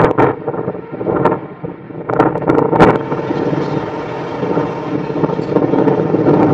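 Strong wind from a tornado buffeting the microphone in uneven gusts with sharp blasts. About three seconds in, it gives way to a steadier rushing wind noise.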